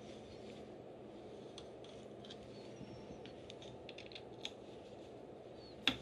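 Small, scattered metal clicks and ticks of bolts being unscrewed by hand and handled, with one sharper, louder click near the end, over a faint steady room hum.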